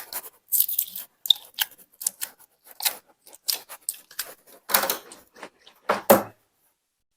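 Glitter jelly slime being squeezed and worked by hand, giving irregular wet clicks and small pops, with two louder squelches about five and six seconds in.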